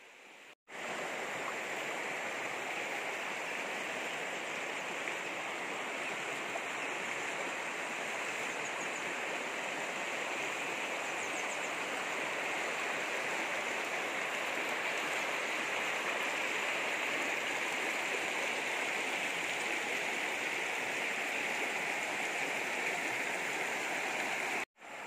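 Shallow rocky river rushing steadily over stones and small rapids, an even rush that cuts in about half a second in and stops abruptly near the end.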